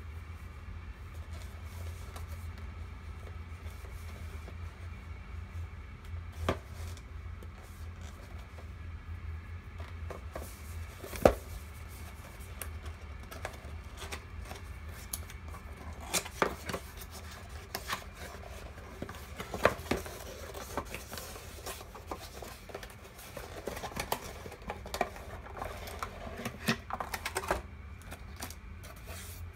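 Hands handling and opening a cardboard retail box on a stone countertop: scattered sharp taps and clicks, the loudest about a third of the way in, then denser rustling and scraping of cardboard and plastic wrap near the end as the inner tray is drawn out. A steady low hum lies underneath.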